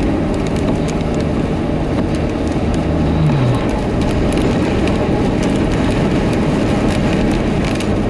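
Road and tyre noise heard from inside a moving vehicle on a slushy highway, with a scatter of sharp ticks as graupel pellets strike the windshield. A steady engine hum drops in pitch a little over three seconds in.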